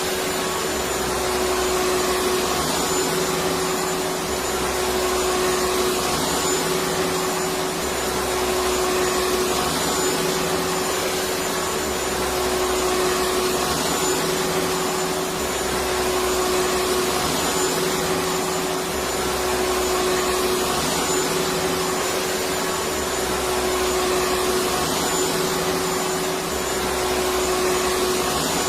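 Electric vacuum cleaner running steadily, a continuous whooshing motor noise with a steady hum through it.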